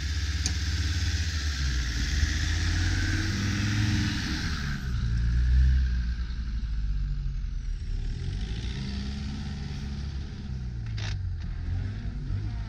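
Land Rover Defender engine revving as it drives through deep snow, its pitch rising and falling with the throttle, with a rushing hiss over it for the first five seconds. A sharp knock comes near the end.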